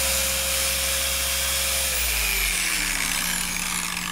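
Handheld electric car polisher with a yellow foam pad running steadily on the paint, then switched off about two seconds in, its motor whine falling in pitch as it spins down.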